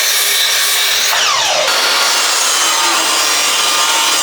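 Power woodworking machine running and cutting wood, a loud steady noise with a tone that drops sharply about a second in.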